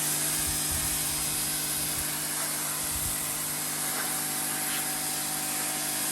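Pressure washer running steadily, its motor humming under the high hiss of the water spray.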